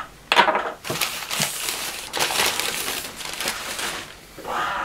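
Large sheet of packing paper being crumpled and pulled away, a continuous crackling rustle lasting about four seconds.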